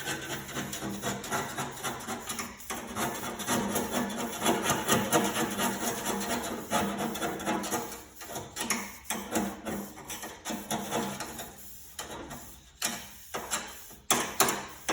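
Rust being scraped off a steel mower deck by hand, a rapid rasping of scraper strokes on metal. It runs densely through the first half, then comes in shorter spells with gaps near the end.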